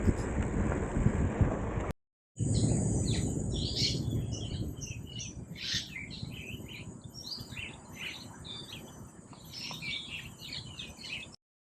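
Birds chirping and calling, many short overlapping calls, over a low rumbling background; they begin after a brief cut about two seconds in.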